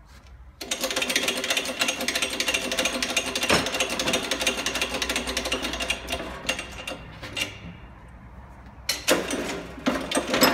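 A 10-ton shop press being worked to push the shaft out of its bearing: a loud, fast mechanical rattle starts about half a second in and lasts about five seconds, then carries on more quietly, with a few sharp knocks near the end.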